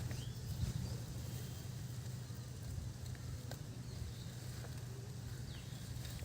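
Steady low outdoor rumble with two brief, faint high chirps, one near the start and one near the end.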